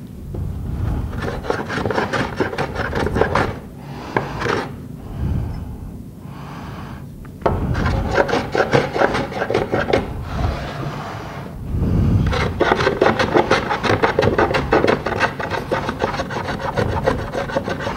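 Small hand plane shaving across the corner joint of a door frame, steel scraping on wood in repeated rasping strokes, to level the joint so there is no step between the frame pieces. The strokes come in short runs with brief pauses at first, then turn into a steady run of quick strokes in the second half.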